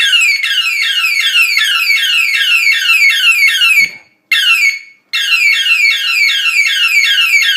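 Toy police siren sounding a fast electronic yelp: rapid falling sweeps, about three a second, from a small speaker. It cuts out about four seconds in, gives a short burst, then starts up again about a second later.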